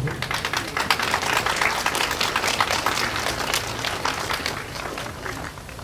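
Applause from a small crowd of children and adults, many hands clapping irregularly and dying away near the end.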